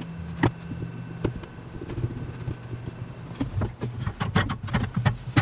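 Scattered clicks and taps of hardware being handled, then a quick run of knocks near the end as a Magnum charge controller is set onto its wall mount, over a steady low hum.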